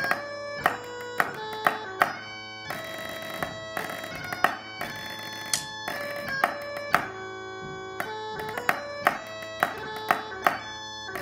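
Snare sticks striking a drum practice pad in quick rhythmic patterns with sharp accented hits, played along to bagpipe music with a steady drone under a changing chanter melody.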